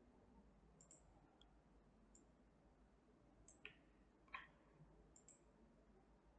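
Faint computer mouse clicks, about half a dozen spread unevenly, with two slightly louder ones near the middle.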